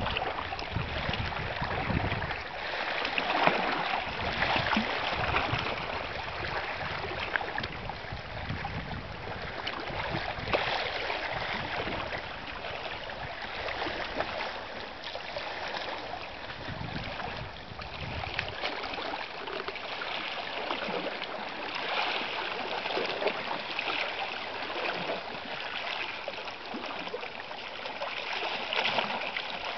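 Small waves lapping and splashing against a rocky shoreline at high tide.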